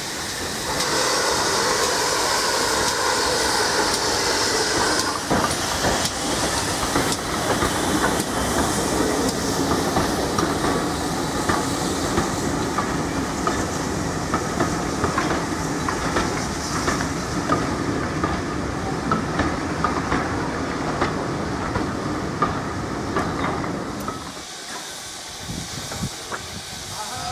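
A GWR 64xx 0-6-0 pannier tank steam locomotive working a passenger train past, with steam hissing over the first few seconds, then coaches rolling by with their wheels knocking over the rail joints. The sound drops away near the end.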